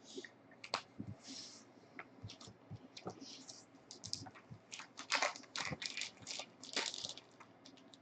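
Trading cards and their plastic holders being handled: irregular light clicks, slides and rustles, getting busier in the second half.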